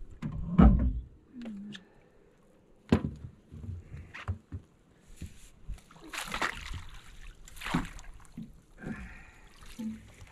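Water splashing and sloshing as a hooked catfish is brought to the surface and landed with a net. A heavy thump comes about half a second in, a sharp knock follows a couple of seconds later, and two loud bursts of splashing come past the middle.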